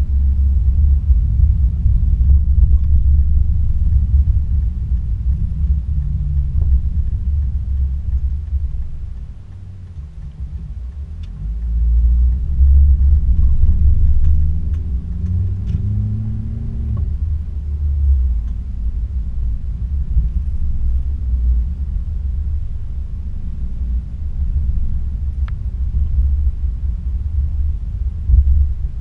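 Low rumble of a car driving, picked up by a GoPro mounted on the car: road and wind noise with the engine underneath. It dips about nine seconds in, then the engine note rises as the car picks up speed again.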